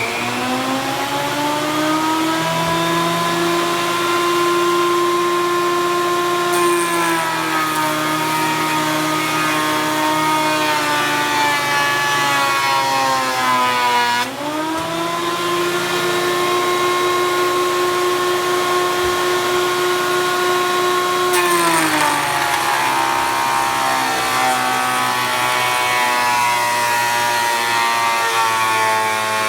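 Porter Cable 6-inch benchtop jointer running loud, its motor whining at a steady pitch after spinning up. The pitch sags and a rough cutting noise comes in as boards are fed across the cutterhead, once about six seconds in and again past the middle, with a brief dip and recovery in between.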